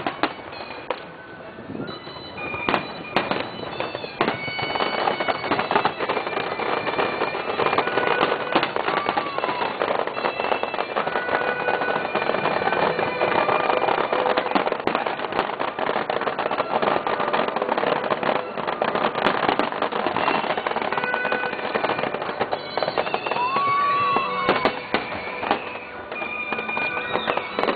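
Fireworks display: dense, rapid crackling and popping of many shells, with high whistling tones and short pitch glides running through it.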